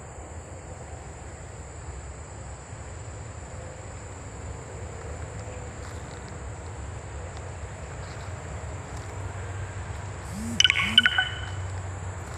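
Steady high-pitched trilling of crickets over a low rumble. About ten and a half seconds in come two short, loud, sharp sounds close together.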